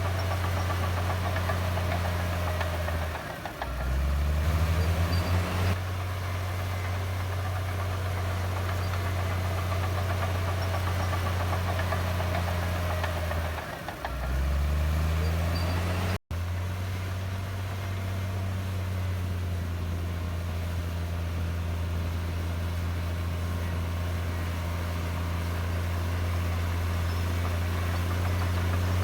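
Komatsu D58E bulldozer's diesel engine running steadily under work. Twice, about three seconds in and again near the middle, its pitch drops and then climbs back up. The sound cuts out for an instant a little past the middle.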